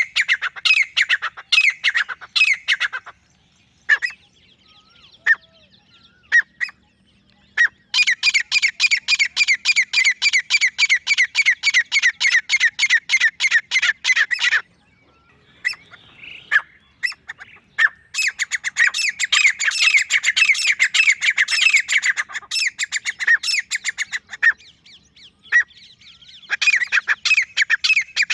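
Male grey francolin calling in loud, rapid bouts of repeated notes, broken by short pauses with a few single notes.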